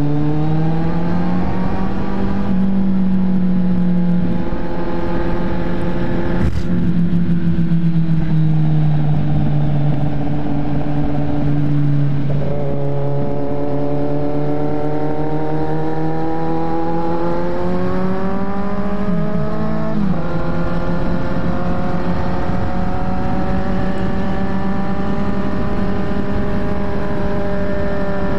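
Motorcycle engine running while riding: its note rises as it accelerates and drops abruptly a few times, over steady wind and road noise. There is one short knock about a quarter of the way in.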